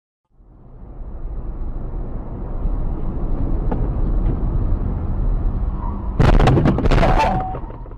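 Steady low rumble of a car's engine and tyres heard from inside the cabin as it drives through a tunnel. About six seconds in comes a loud crash: several sharp impacts over about a second as the car runs into the back of a braking van.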